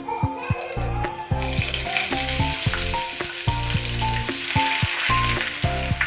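Food frying in hot oil in a pan, a loud sizzle that starts about a second and a half in and eases off near the end.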